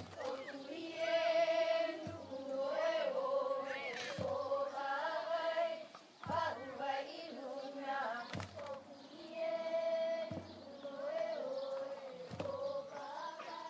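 Hawaiian hula chant sung in long held, wavering notes, with a drum beat about every two seconds keeping time.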